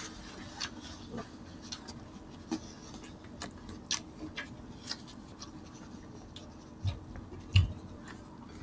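Close-miked eating with the hands: scattered small wet clicks and smacks of chewing and fingers working rice and pork. There are two soft low thumps near the end.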